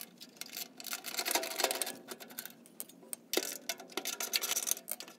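Socket ratchet clicking rapidly in two runs as it backs the bolts out of a gas water heater's burner access cover.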